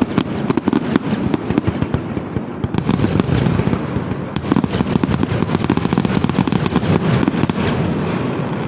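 Fireworks display's closing barrage: many shells bursting in quick succession, their bangs running together over a constant low rumble, easing off slightly near the end.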